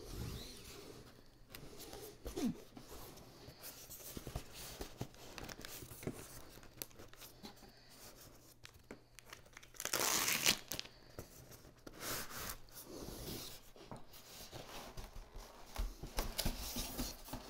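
Cardboard and styrofoam TV packaging being handled and pulled apart: rustling, scraping and small knocks, with a louder ripping sound about ten seconds in.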